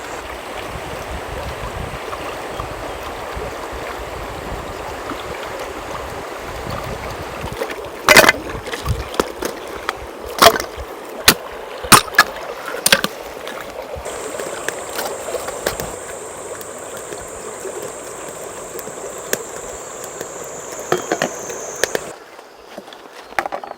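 Steak sizzling over a wood fire: a steady hiss with several sharp, loud crackling pops, the loudest about a third of the way in.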